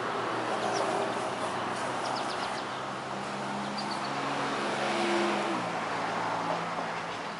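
A vehicle passing by with a steady engine hum that drops in pitch about five and a half seconds in as it goes past, with a few faint bird chirps.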